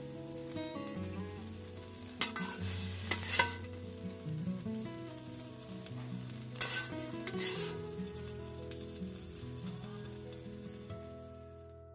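A metal spoon scrapes the inside of a metal karahi (wok) twice, about two seconds in and again near seven seconds, as the cooked curry is scooped out. Instrumental background music with held notes plays throughout.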